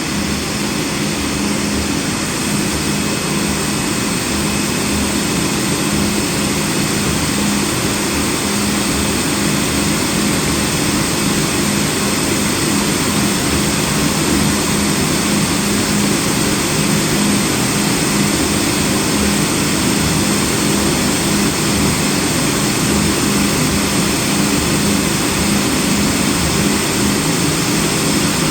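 CNC cutting machine running steadily as it cuts a snowboard base sheet, a constant mechanical drone with a steady hum under it.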